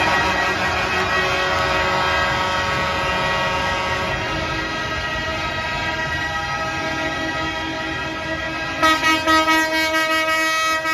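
A horn sounds one long chord of several steady tones, and near the end it pulses in quick blasts.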